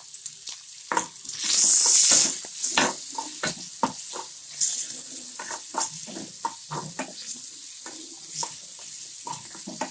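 Onion, tomato, dried red chillies and garlic frying in oil in a kadai while a spoon stirs them, scraping and clicking against the pan. A brief, loud hiss of sizzling comes about a second and a half in.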